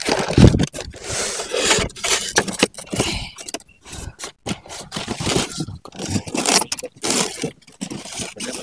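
Polystyrene foam packaging scraping and rubbing as the foam box holding a toy RC excavator is handled, lifted and tipped, in short, irregular scrapes.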